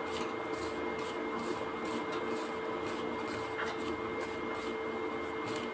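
Fingers rubbing and mixing dry ground spice powder in a stainless steel plate: a soft, repeated scratchy rubbing, over a steady hum.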